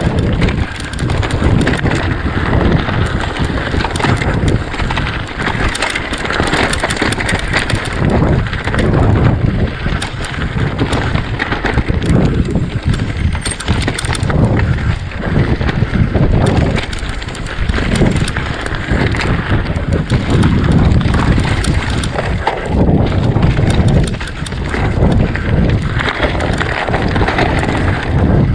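Mountain bike descending rough moorland singletrack at speed: wind rushing over the microphone, tyres rumbling over stony ground, and the bike rattling and knocking on the bumps.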